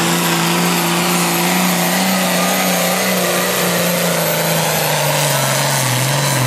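Hot farm class pulling tractor's engine running hard and loud at high revs, holding a steady pitch and then sagging lower near the end as it bogs under the weight of the sled.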